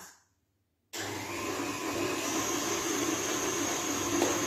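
Stand mixer's motor running steadily as it beats butter and sugar together, cutting in abruptly about a second in after a moment of dead silence; a thin high whine joins a second or so later.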